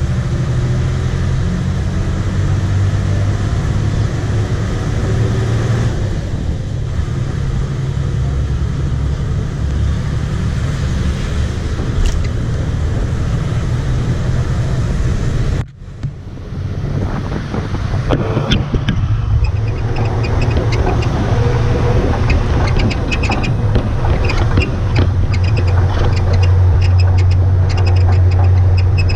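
Motor vehicle engine droning steadily with road and wind noise as it drives. The sound drops out briefly a little past halfway, then comes back with more rattling.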